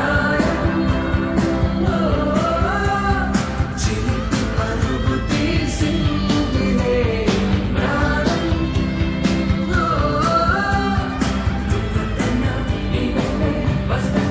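Telugu film song playing in an 8D-audio mix: a sung melody over a steady beat with percussion.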